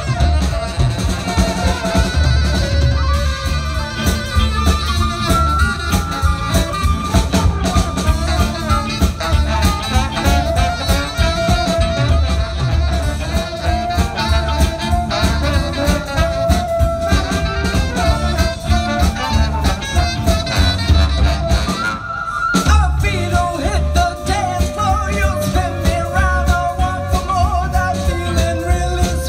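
A live band plays jazzy swing-style music: saxophone, trumpet and trombone over electric guitar and a drum kit. The music drops out briefly about two-thirds of the way through, then comes back in.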